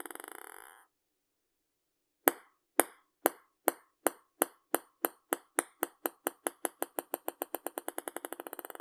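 A ping pong ball bouncing on a hard surface. The tail of one bounce sequence dies out in a quick patter just under a second in. Then another ball is dropped about two seconds in and bounces with sharp clicks, the bounces coming faster and fainter until they run together into a rapid patter near the end.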